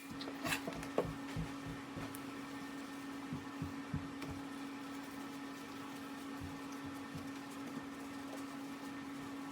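A small electric motor running with a steady hum, with a few sharp clicks in the first second and scattered light knocks.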